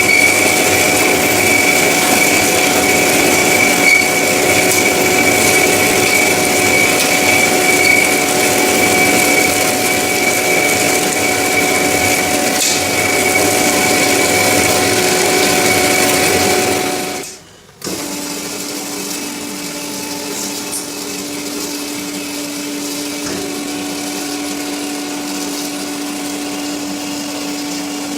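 Semi-automatic metal-cutting band saw running with a loud, steady whine. About 17 seconds in it fades out, and a quieter, steady machine hum takes over.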